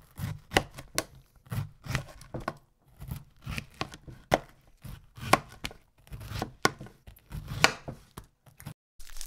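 Knife slicing a peeled hard-boiled egg into wedges on a wooden cutting board: a string of irregular sharp knocks as the blade meets the wood, with soft thuds as the pieces are handled and set down.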